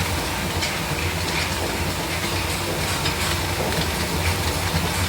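Industrial plastic-granule mixer running: a steady motor hum under an even rattling hiss with faint irregular ticks.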